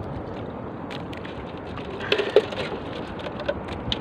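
Scattered clicks and knocks of hands rummaging in the bottom of a small outrigger boat, with a denser, louder cluster about two seconds in, over a steady hiss of wind and sea.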